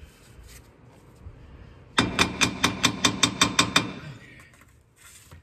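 A hammer tapping on metal: a quick run of about a dozen sharp, ringing strikes, about six a second, starting about two seconds in and lasting just under two seconds.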